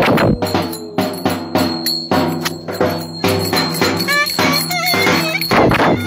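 Live Turkish folk dance music: a clarinet plays an ornamented melody over a steady beat of drum strokes with jingling percussion.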